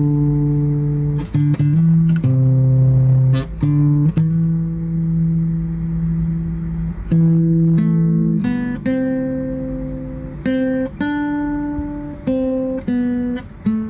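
Background guitar music: slow plucked notes, each ringing on and fading before the next.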